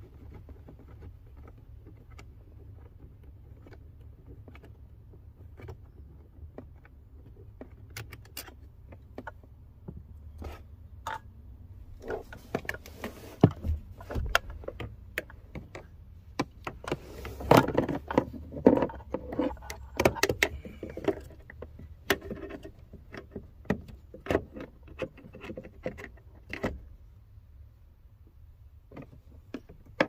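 Hands working wiring and plastic trim under a pickup's dashboard: scattered sharp clicks and rattles, busiest a little past halfway, over a low steady hum.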